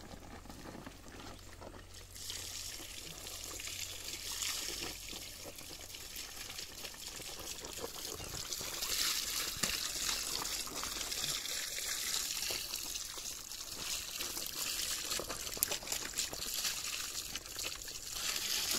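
Water pouring and trickling: a steady splashing hiss with small clicks that comes up about two seconds in and grows louder around nine seconds.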